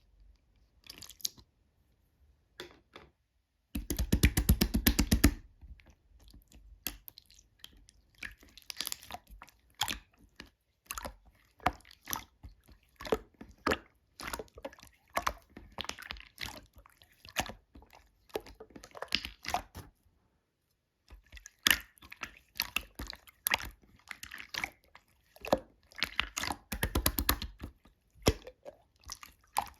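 Slime being squished and pressed by hand, giving irregular small crackling clicks and pops. A fast, dense run of clicks comes about four seconds in, and the sound stops briefly around twenty seconds in.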